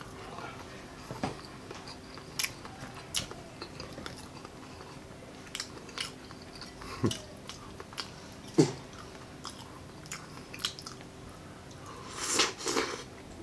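Close-miked mouth sounds of eating baked bone marrow: chewing with scattered wet smacks and clicks, then a louder run of slurping near the end as marrow is sucked from the bone.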